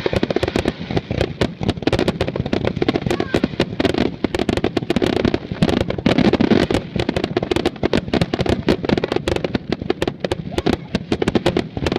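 Fireworks finale: a dense, continuous barrage of rapid pops, crackles and bangs, many per second, with no gaps.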